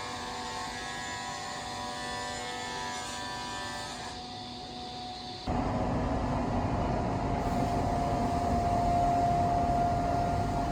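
CNC router running: a steady machine whine with several held tones. About halfway through it cuts abruptly to a louder, noisier machining sound with one strong steady whine.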